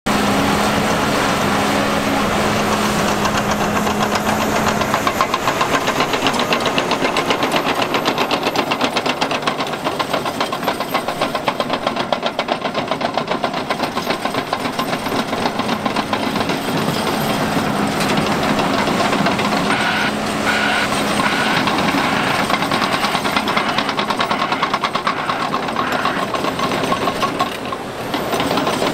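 Heavy diesel engines of a Volvo EC950F excavator and Volvo A60H articulated dump trucks running steadily under load, with a dense, even rapid pulsing throughout. A steady hum rises over it in the first two seconds and again later on.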